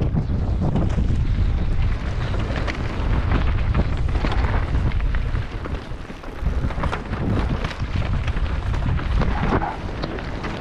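Wind buffeting the microphone of a mountain bike's on-board camera as it descends a rough trail, with a steady stream of clattering knocks and rattles from the tyres and bike over rocks and roots. The rush eases briefly about halfway through, then picks up again.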